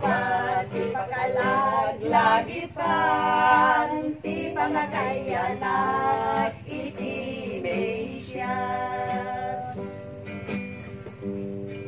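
Women singing an Ilokano Christmas carol together in held phrases, accompanied by a strummed acoustic guitar.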